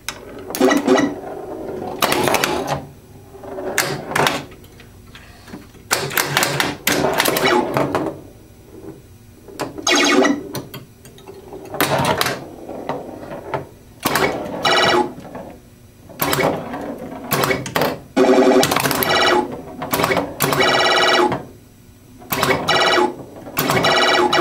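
Atari pinball machine in play: bursts of electronic sound-effect tones every second or two, mixed with sharp clacks of solenoids firing as the ball hits targets. The repaired CPU board is running the game, with its switches scoring.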